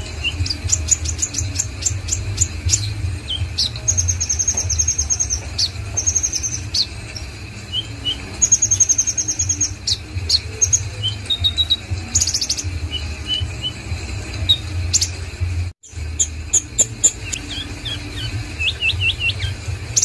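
Caged kolibri ninja (konin) sunbird singing: quick runs of high-pitched trilled notes and chirps, broken by short pauses, over a steady low hum.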